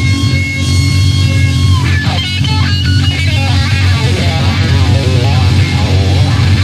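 Rock music with electric guitar. Held lead notes bend in pitch, then about two seconds in comes a quick run of notes, all over a heavy, steady low end.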